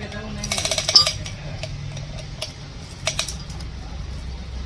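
Metal clicking and clinking from a piston-ring compressor and hand tools as the piston rings are closed up for fitting into the bore. There is a quick rattle of clicks about half a second in, then a few separate light metallic taps over a steady low hum.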